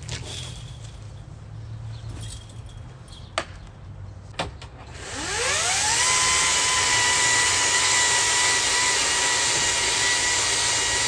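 Two sharp clicks, then an electric motor tool spins up, its whine rising over about a second, and runs at a steady high pitch with a strong rush of noise.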